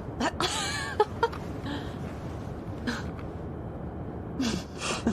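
Steady low road rumble inside a moving car's cabin, with a brief wavering vocal sound near the start and a couple of small clicks about a second in.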